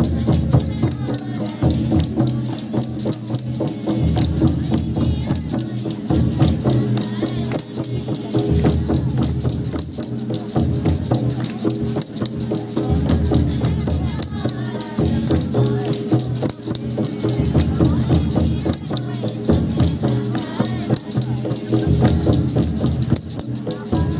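Live devotional bhajan music: a steady low beat under constant high jingling percussion.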